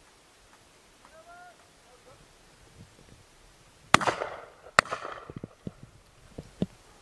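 Shotgun fired twice in quick succession, two loud cracks under a second apart, each trailing off into echo. Several fainter pops and clicks follow.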